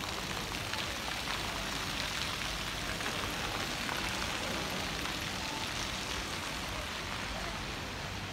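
Light rain falling on pavement: a steady hiss with scattered faint ticks.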